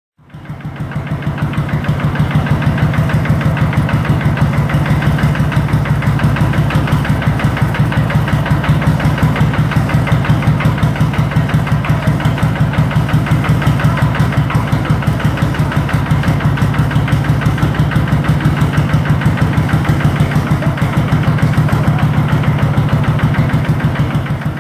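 Lanz Bulldog crawler tractor's single-cylinder hot-bulb two-stroke engine running steadily at idle, with a rapid, even beat of firing strokes.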